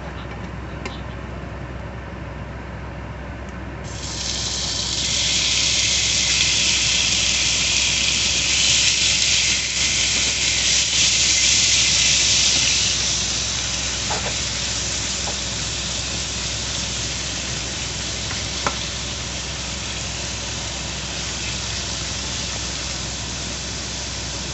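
Sliced raw meat hitting hot oil and garlic in a nonstick frying pan: a loud sizzle starts suddenly about four seconds in, stays strongest for several seconds, then settles to a softer, steady sizzle. A few light taps of a wooden spatula against the pan.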